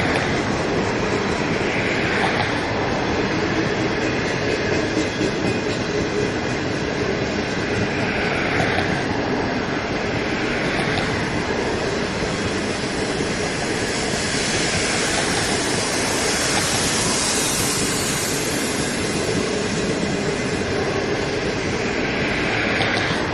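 Green China Railway passenger coaches rolling steadily past, their wheels running on the rails. A high hiss swells for a few seconds in the middle.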